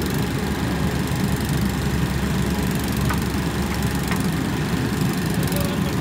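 JCB backhoe loader's diesel engine running steadily while the backhoe arm works and swings.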